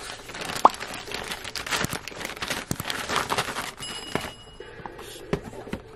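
Plastic mailer bag crinkling and rustling as it is handled and opened, with a sharp pop about half a second in and a short high steady beep about four seconds in.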